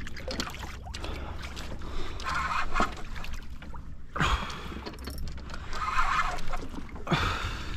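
Water sloshing and lapping against a fishing kayak's hull during a fight with a tuna on the line. Two short falling grunts or exhalations come about four and seven seconds in, over a steady low rumble.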